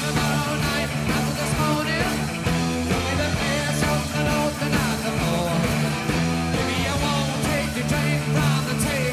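Rock music playing, with drums and a bass line.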